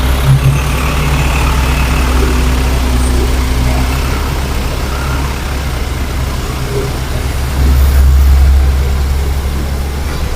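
Heavy earthmoving machine's diesel engine running steadily with a deep hum, growing louder for a second or so near the end before settling back.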